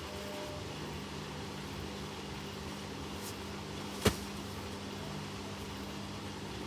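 Washing machines running a spin cycle: a steady mechanical hum with a single sharp click about four seconds in.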